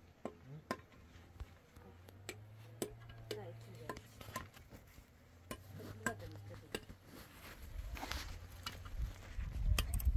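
Scattered sharp knocks and clinks at an irregular pace, with faint voices in the background. A low rumble builds over the last couple of seconds.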